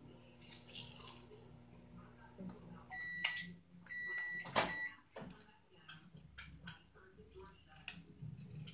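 Microwave oven humming as it heats the oatmeal, then stopping about three seconds in and beeping about three times with a sharp clunk among the beeps: the cooking time is up.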